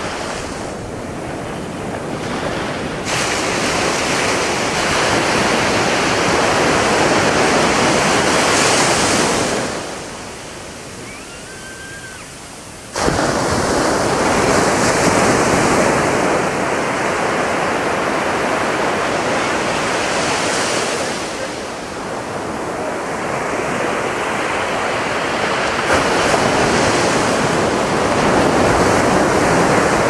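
Atlantic Ocean surf breaking and washing up a sandy beach, a continuous rush of waves. It eases off briefly in the middle, then comes back suddenly as the next wave breaks.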